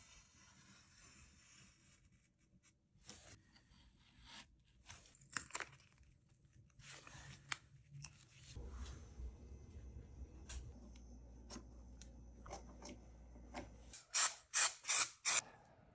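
Hand work on a camera bellows pattern: a knife scoring dark card along a steel rule, and strips of painter's tape being torn off and pressed down, in short irregular scrapes and rips. Near the end come four short, loud rasping strokes.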